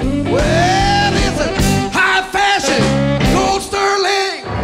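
Background music: a song with a lead melody that slides up and down in pitch.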